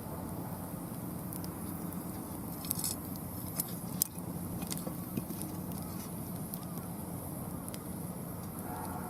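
Mixed hardwood firewood burning in a fire pit, crackling with a few sharp pops and snaps over a steady low rumble.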